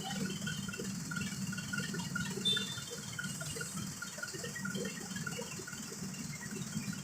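An engine running steadily at low speed with a low hum, and a brief sharp metallic clink about two and a half seconds in.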